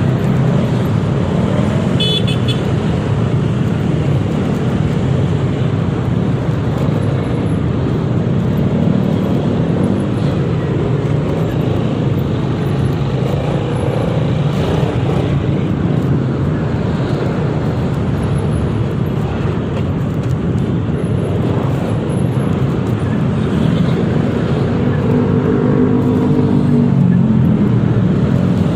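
Riding a Yamaha XMAX 300 scooter in heavy traffic: steady wind and road noise over the scooter's engine and surrounding vehicles, with a brief high horn toot about two seconds in.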